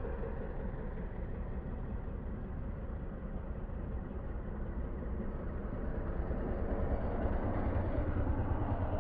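Motor scooter engine running as the scooter rides past close by, over a steady hum of road traffic. The sound grows louder in the last few seconds as the scooter comes nearest.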